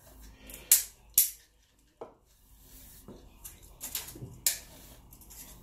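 Steel tape measure and power cable being handled while measuring: irregular sharp clicks and light metallic rattles, about half a dozen, the two loudest close together near the start.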